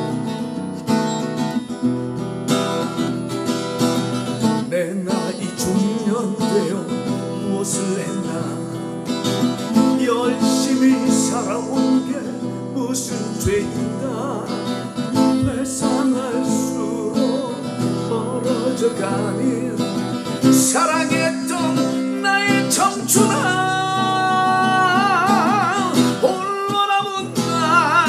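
Acoustic guitar strummed, with a man singing a slow ballad to it. His voice, with a wide vibrato, is strongest in the last several seconds.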